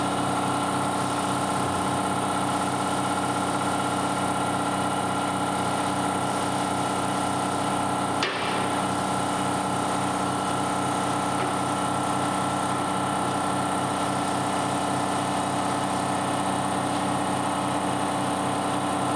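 Workshop air compressor running steadily, supplying a paint spray gun, with one sharp knock about eight seconds in.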